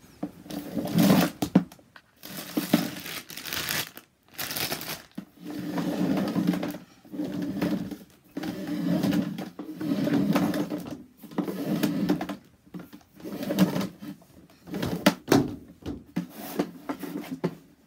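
Garden hose being pulled by hand off a Hozelock 2-in-1 hose reel, the plastic drum turning and rattling with clicks on each pull, in a dozen or so pulls until the reel is empty.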